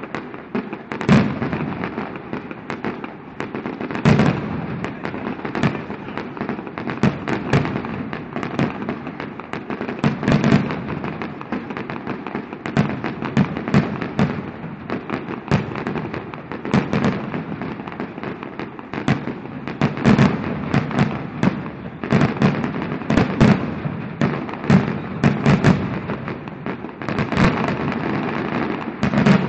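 Aerial fireworks bursting overhead: a dense, irregular run of bangs, at times several a second, over a continuous wash of noise, with a few louder bangs standing out.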